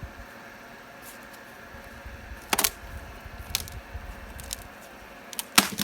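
Dry sticks and branches cracking and knocking as they are handled and broken for a campfire: a few sharp cracks, the loudest about two and a half seconds in and just before the end.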